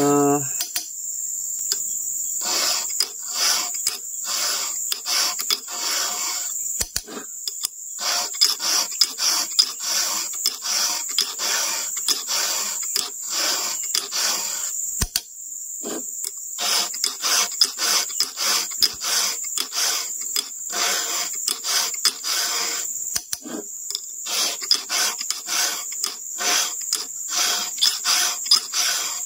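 A file rasping across the cutters of a chainsaw chain, sharpening a chain that has gone dull. The strokes come about two a second in runs broken by short pauses. A steady high insect chirring runs beneath.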